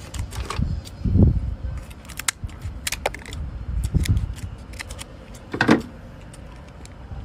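Kitchen scissors snipping through the shell of a boiled king crab leg: a run of short, sharp clicks and cracks, with a couple of dull bumps.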